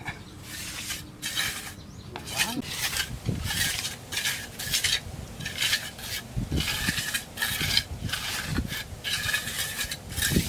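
Repeated rasping strokes of a hand tool working bamboo, roughly two a second, in an even rhythm.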